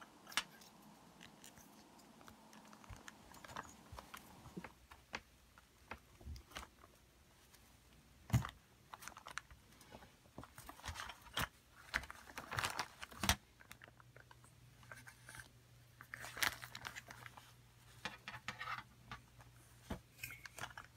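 Play-Doh being pressed by hand into a plastic mold tray and rolled flat with a small wooden roller: soft squishing with scattered light taps and clicks.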